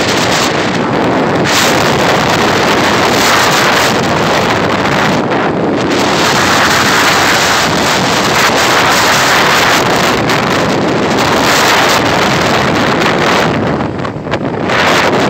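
Loud, steady wind buffeting the microphone of a camera carried on a moving motorcycle at road speed. The noise eases briefly near the end.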